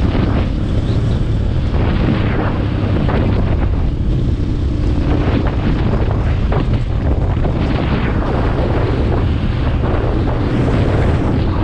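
KTM 450 EXC-F single-cylinder four-stroke engine running steadily as the bike rides along the road, with wind buffeting the microphone.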